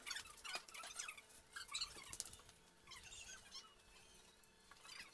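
Faint, scattered high chirps of small birds, with a few light knocks in the first second.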